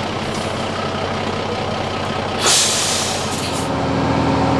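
Turntable ladder fire engine's diesel engine running, with a loud air-brake hiss about two and a half seconds in that lasts about a second. Near the end the engine settles into a higher, steady hum.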